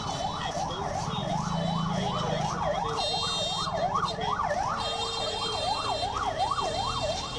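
A siren yelping, its pitch sweeping rapidly up and down about two and a half times a second.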